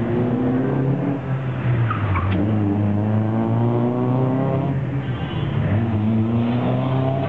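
Car engine revving hard through an autocross run, its pitch climbing, dropping sharply about four and a half seconds in, then climbing again.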